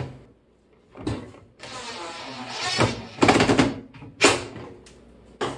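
Blower-motor assembly of a Frigidaire FFMV1645TH microwave being turned and pushed into place by hand: a second-long scrape of its plastic housings dragging against the metal chassis, then several knocks and clunks as it seats.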